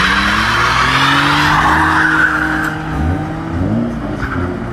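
Two cars, a BMW 3 Series coupe and a Ford Cougar, launching hard from a standing start in a drag race. Tyres squeal with wheelspin for about the first two and a half seconds while the engines pull at high revs, then the engine sound fades as the cars draw away.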